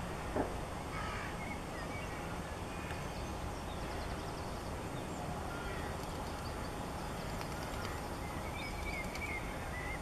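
Faint, harsh bird calls a few times over a steady low rumble, with one short knock about half a second in.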